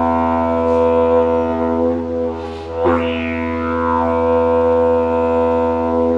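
Didgeridoo playing one continuous low drone. There is a short sharp accent about three seconds in, after which the higher overtones sweep up and down.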